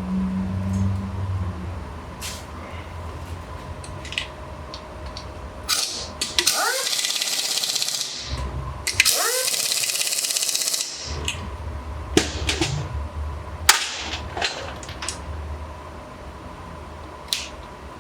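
Two loud hissing blasts, each about two seconds long, a little over halfway through, each opening with a brief sliding whistle. Scattered sharp clicks and knocks and a low hum run around them.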